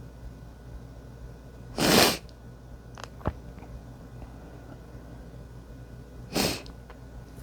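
A person sneezing twice, wet sneezes, the first about two seconds in and louder, the second near the end and shorter. A single sharp click falls between them.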